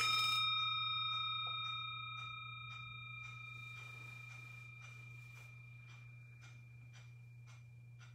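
Brass singing bowl struck once with a wooden striker, ringing with several clear overtones that fade slowly over several seconds, a higher tone lingering longest. The bell marks the start of a guided prayer meditation.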